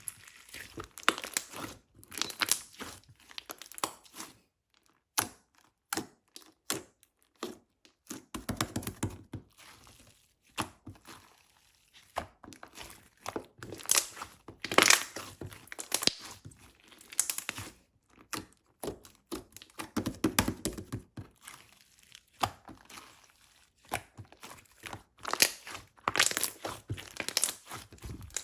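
Frosting slime being pressed, squished and stretched by hand, giving irregular runs of crackling, popping clicks with short pauses between them.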